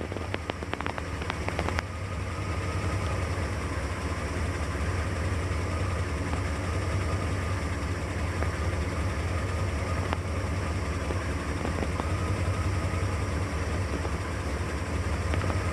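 1984 Corvette's Crossfire Injection 350 cu in small-block V8 idling steadily from inside the cabin, still warming up after a cold start. The idle settles from about 700 to about 600 RPM as the engine goes into closed loop.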